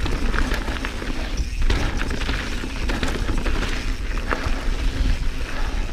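Santa Cruz Bronson full-suspension mountain bike clattering down a rocky trail: a rapid, irregular run of knocks and rattles from the tyres and frame hitting rocks, over a steady low rumble.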